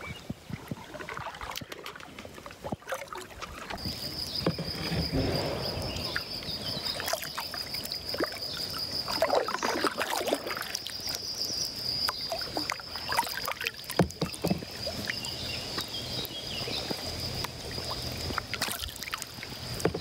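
Kayak paddle strokes splashing and dripping in calm river water beside the boat. From about four seconds in, a steady high-pitched trill sounds over the water noise.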